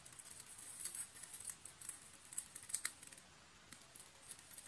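Faint scraping of a pizza cutter wheel rolling through a vegetable omelette on a steel plate, with scattered short clicks as the blade presses through to the plate.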